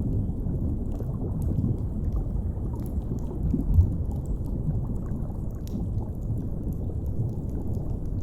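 Steady low underwater rumble, with faint scattered crackles of a wood fire and a single low thud about four seconds in.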